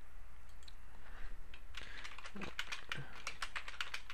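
Typing on a computer keyboard: a fast run of keystroke clicks that starts a little under halfway through, over a steady low hum.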